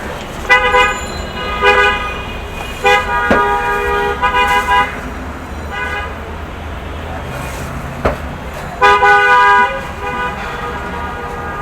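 Vehicle horns honking in repeated short blasts, a few seconds apart, over a steady hum of street traffic. There are two sharp clicks, one about three seconds in and one about eight seconds in.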